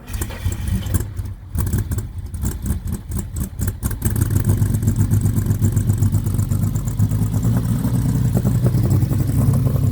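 1982 Lamborghini Countach 5000 S's 4.75-litre V12 starting hard. For about four seconds it fires unevenly and stumbles as it catches, then it runs on louder and steadier at a rough idle. It is the sign of an engine due for a tune-up.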